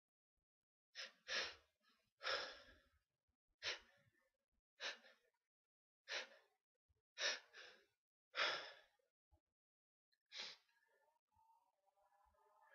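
A person sneezing over and over in a rapid fit: about eight short, sharp sneezes, roughly a second or so apart.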